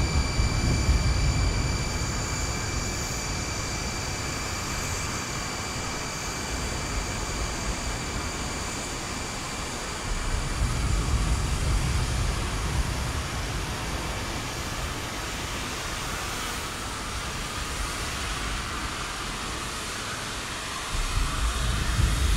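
Steady industrial drone of an oil refinery's plant: a hiss with several steady high whines over it. A deep rumble swells up at the start, again about ten seconds in, and near the end.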